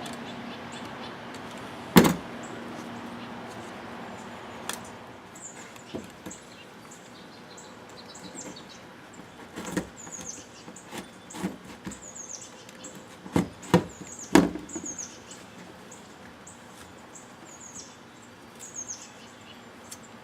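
Sharp knocks and clicks from handling the cut-open oil filter and tools on the bench, with a bird chirping over and over in the background: short high chirps that fall in pitch, about one a second from a few seconds in.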